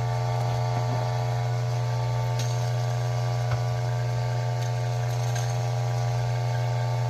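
Ceado E6P espresso grinder's motor running with a steady hum, grinding the last few bean pieces fed into it.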